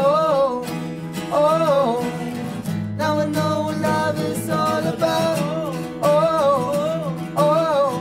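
Two men singing together over two strummed acoustic guitars, an acoustic pop-folk song.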